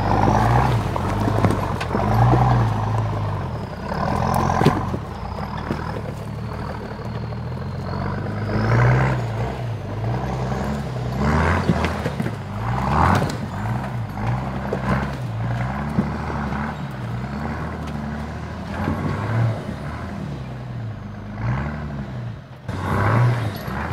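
Engine of a Ford-badged GQ Patrol four-wheel drive revving up and down under load as it crawls up a steep, loose, rocky hill. Knocks and clatter from the tyres and rocks come in repeated surges.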